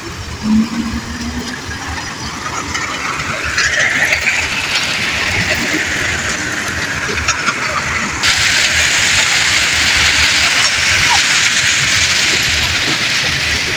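Hyundai HL665 wheel loader working gravel: its diesel engine revs up about three seconds in as the loaded bucket is lifted, then holds high under load. About eight seconds in the sound jumps abruptly to a louder, steady hiss.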